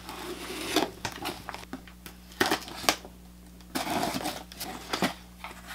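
Packing tape on a cardboard shipping box being slit with a small blade and the flaps worked open: irregular scraping, ripping and crinkling in several bursts, with a few sharp clicks.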